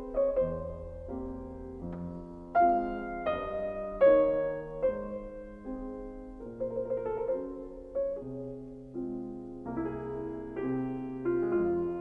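Background piano music: a melody of separately struck notes over held lower notes.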